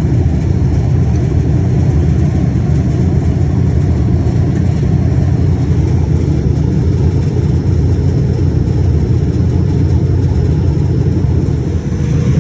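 Loud, steady low rumble of running machinery, unchanging throughout, with a brief dip in level near the end.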